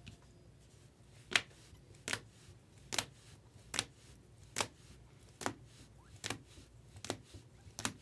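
Rigid plastic top loaders clacking against each other as a stack of top-loaded trading cards is flipped through one card at a time: a short, sharp clack about every second, nine in all.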